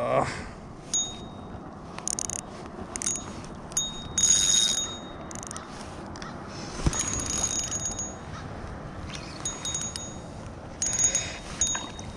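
Spinning reel sounding in short bursts, each a thin ringing whine, as a hooked largemouth bass is fought and reeled in on light line.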